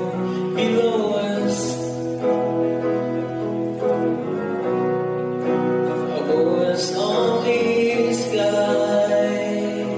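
A man singing live into a microphone, accompanied by his own strummed electric guitar played clean.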